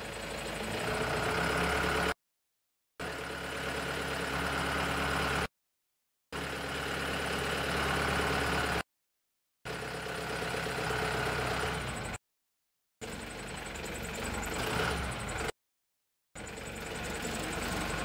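Self-loading concrete mixer truck's diesel engine running with a steady hum. The sound cuts out completely for under a second about every three seconds.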